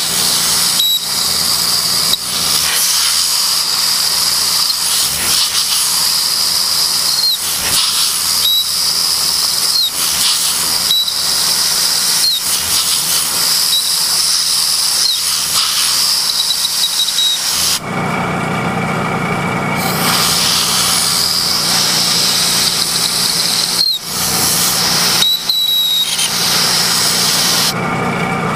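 Milling machine plunging a four-flute 5/8-inch end mill through a clamped stack of aluminum blocks and thin shims: a loud, steady, hissing cut with short squeals recurring every second or two. About 18 seconds in, the hiss drops away for a couple of seconds while a lower running noise comes up, then the hiss returns.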